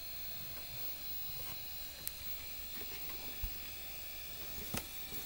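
Quiet room tone: a steady electrical hum with a faint high whine, broken by three small clicks or knocks, the middle one a low thump.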